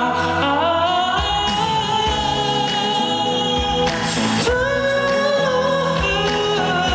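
Live pop ballad performance: a male singer's held, gliding vocal line over band accompaniment, with a low beat coming in about a second in.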